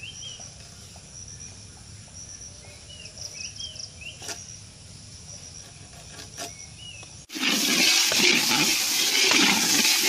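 Small birds chirping, with short calls and quick high trills. About seven seconds in it cuts suddenly to a loud sizzle of cubed vegetables frying with spices in oil in a large iron wok, with a ladle stirring and scraping through them.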